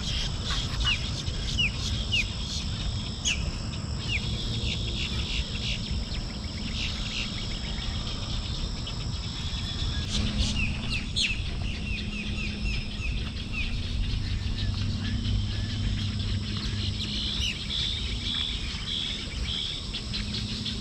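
Marsh wildlife chorus: birds calling in runs of short, quick falling chirps over a steady high insect drone, with a low rumble underneath.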